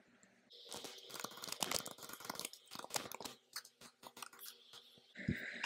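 Faint computer keyboard typing: a quick, irregular run of key clicks for about four seconds, then a soft thump near the end.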